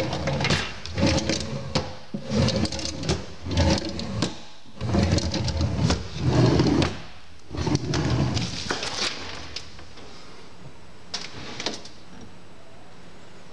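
Kitchen cabinet drawers being pulled open and pushed shut several times, with runners sliding and fronts knocking closed. A couple of light clicks follow a little after eleven seconds, then only a low steady hum.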